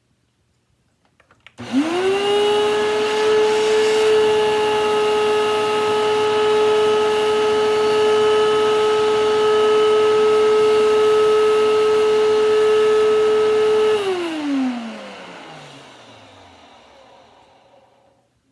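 Hoover WindTunnel bagless upright vacuum cleaner switched on, its motor spinning up fast to a steady whine. It runs for about twelve seconds, then is switched off and winds down with a falling pitch until it stops.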